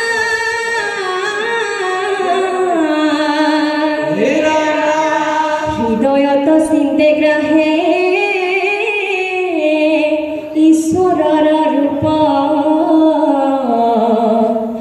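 Group of young men and women chanting an Assamese dihanam, a devotional hymn, in unison and without drums. The notes are long and held, and they slide from one pitch to the next.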